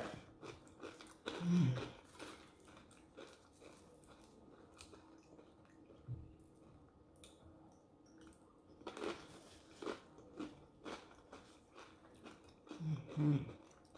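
Close-miked chewing and biting of food, with scattered small wet clicks and a couple of short low mouth sounds, about a second and a half in and again near the end.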